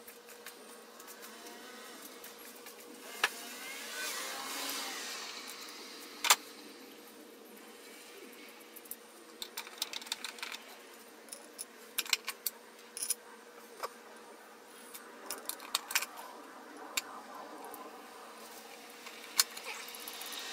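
Scattered light metallic clicks and clinks of parts being handled over the engine, with one sharp knock about six seconds in and bursts of quick clicking in the second half, over a faint steady hum.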